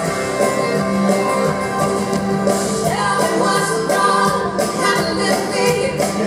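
A country band playing live in an arena, with banjo, fiddle, guitars and drums under women's voices singing.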